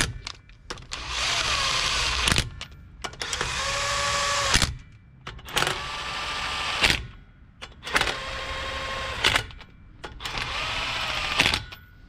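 A cordless power tool running lug nuts onto the studs to snug a wheel spacer against the hub, not torqued down. It makes five short runs of about a second each, its motor whine rising in pitch as it spins up, holding steady, then stopping.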